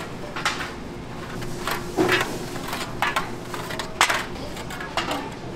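Aluminium foil loaf trays being pulled one at a time off a stack and set down on a counter: short crinkly clicks about once a second, over steady kitchen background noise.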